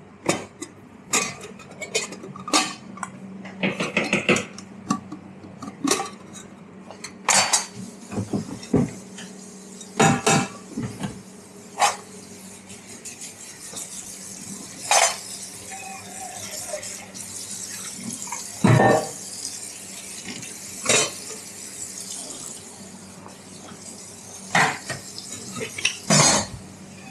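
Barista's work at a café counter: ceramic cups, saucers and metal tools clinking and knocking at irregular intervals, over a steady low hum.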